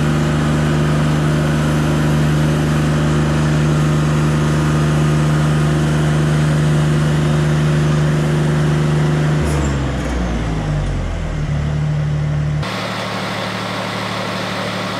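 Wood-Mizer hydraulic sawmill's engine running steadily under power. About nine and a half seconds in its pitch shifts and wavers for a few seconds, then after a sudden change near the end it settles into a lower, steady hum.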